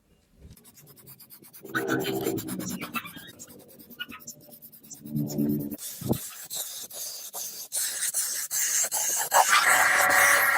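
Hand-work scraping and rubbing on metal, with many small sharp clicks, growing louder and noisier about halfway through.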